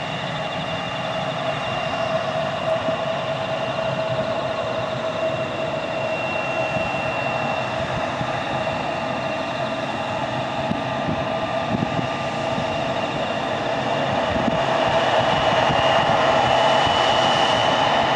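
Embraer 175 airliner's twin GE CF34 turbofan engines running at low thrust as it taxis: a steady jet whine with a few held whistling tones, getting a little louder near the end.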